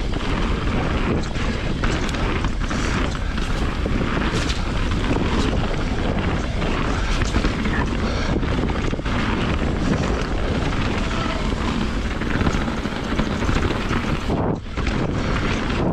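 Wind buffeting the camera microphone as a full-suspension mountain bike, a 2020 Rocky Mountain Instinct BC, rolls fast down a rough trail, with frequent short knocks and rattles from the bike going over rocks and roots. The noise eases briefly near the end.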